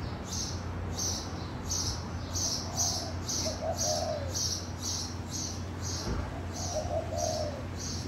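Doves cooing: two soft cooing phrases, one about three seconds in and another near seven seconds. Behind them, a steady high chirping repeats about one and a half times a second.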